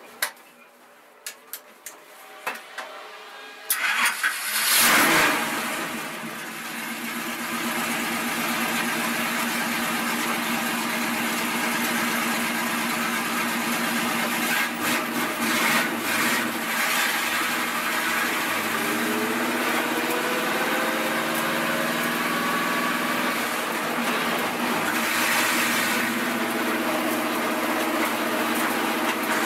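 Stock car's V8 engine being started: a few clicks, then about four seconds in it cranks and fires with a loud burst and settles into a steady idle. Later the engine note rises as the car pulls away.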